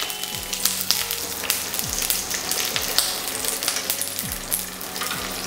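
Mustard seeds and curry leaves sizzling and spluttering in hot oil in a non-stick kadai, with sharp pops scattered throughout over a steady hiss, as a spatula stirs them.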